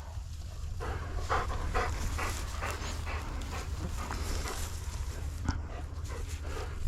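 Hunting dog panting in a steady run of quick breaths, about two or three a second, out of breath from retrieving a shot pheasant.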